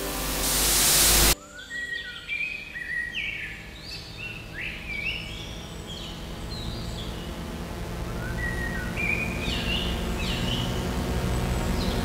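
A loud burst of hiss swells and cuts off abruptly about a second in. Short bird-like chirps, rising and falling in pitch, follow over a low steady drone that slowly grows louder.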